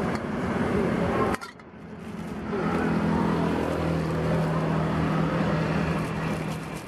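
Steady low hum of a motor running close by, amid outdoor street noise; the sound drops off abruptly about a second and a half in, then the hum builds back and holds.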